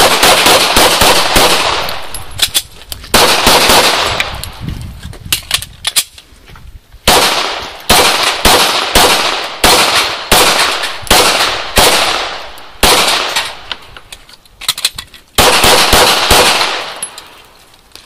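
Pistol shots fired in a timed practical-shooting stage run: quick runs at about two shots a second and close pairs, broken by short pauses, each shot trailing off in echo. The string starts right at the timer's start and ends about a second before the end.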